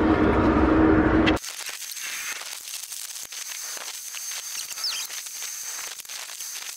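Wind buffeting the microphone, which cuts off abruptly after about a second and a half. A faint hiss follows, with scattered small clicks and a thin steady high tone.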